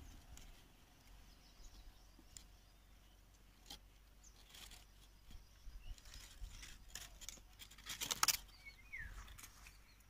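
Faint, scattered clicks and rustles of dry leaves and twigs being handled, with a cluster of sharper clicks about eight seconds in.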